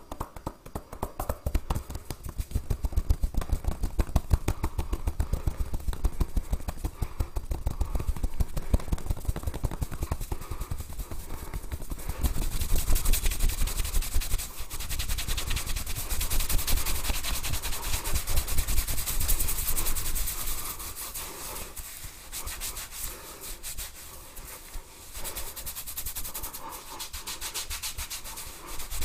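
Hands rubbing and scratching through hair and over a scalp in quick, continuous strokes during a head massage, turning hissier and brighter about twelve seconds in.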